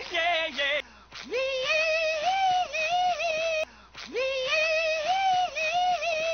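SpongeBob's cartoon voice wailing in a long, wavering high note, chopped and looped. The same rising held wail breaks off and starts over about four seconds in.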